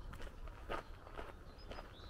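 Footsteps of a person walking on a gravel-and-dirt lane, about two steps a second, each a short crunch.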